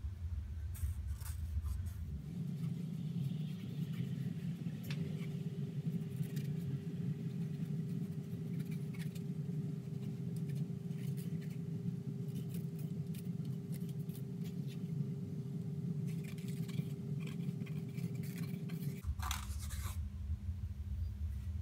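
Pencil scratching and tapping on a wooden guitar body as a control-cavity outline is marked, over a steady low hum that shifts about two seconds in and again near the end.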